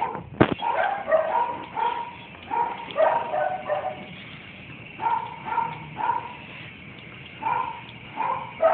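Beagle-mix dog giving short, repeated play barks and yips, about one or two a second with pauses between runs. A sharp knock comes about half a second in.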